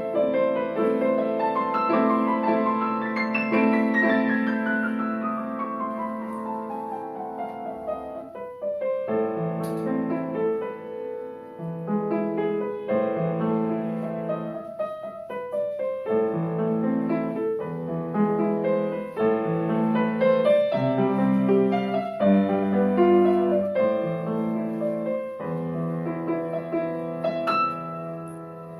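Solo piano playing a classical piece: a long run of notes falling down the keyboard a few seconds in, then chords under a melody.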